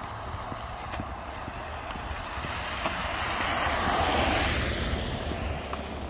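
A vehicle passing on a wet road: a rushing tyre hiss that builds to a peak about four seconds in, then fades as it goes by.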